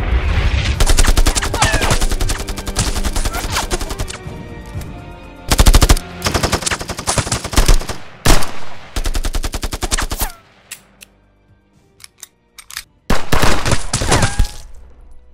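Long bursts of rapid automatic gunfire. About ten seconds in the fire thins to a few scattered single shots, then one more burst comes near the end.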